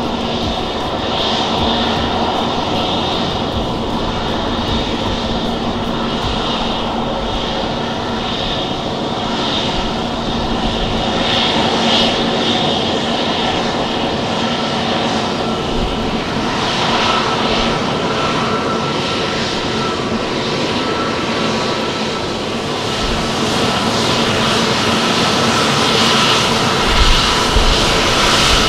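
Airbus A320neo's turbofan engines running, a steady jet noise with a low held hum, growing a little louder near the end.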